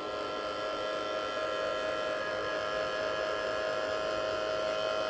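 Hand-held electric hot-air blower running steadily on a high setting, a motor whine with a rush of air, drying freshly applied PVC shoe glue.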